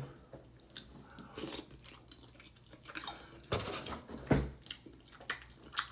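Close-up eating sounds: a mouthful of fufu and egusi soup being chewed and smacked, in short scattered bursts, the loudest about three and a half and four and a half seconds in.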